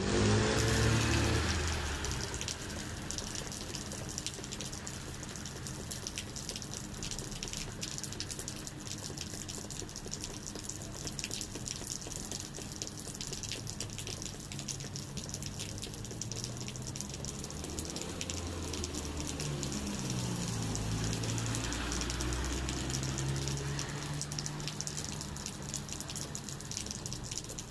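Steady spring rain falling, a constant hiss of water with the patter of many drops, loudest in the first couple of seconds. A low hum rises and falls underneath near the start and again over the second half.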